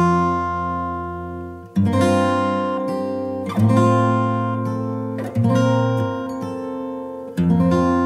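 Background music: acoustic guitar strumming chords that ring out and fade, with a new strum about every two seconds.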